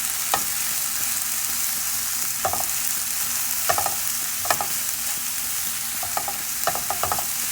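Fried rice sizzling in a pan while a spatula stirs and tosses it to break up the rice and mix it with the other ingredients: a steady hiss with irregular scrapes and knocks of the spatula on the pan every second or so.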